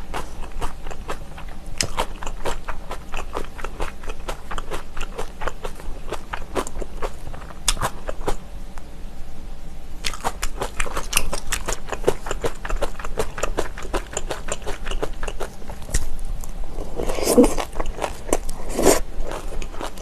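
Close-miked chewing and crunching of kimchi, a rapid run of wet mouth clicks and crisp bites, louder about seventeen to nineteen seconds in.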